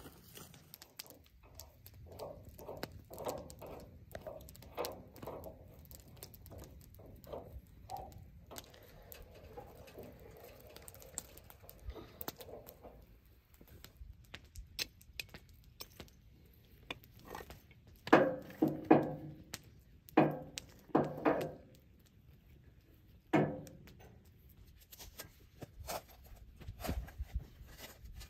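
Handling noise of concrete blocks and a shovel on burnt ground: scattered clinks, knocks and scrapes. A handful of louder short strikes or scrapes come about two-thirds of the way in.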